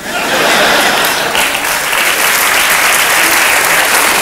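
Audience applauding: dense clapping that starts at once and holds steady.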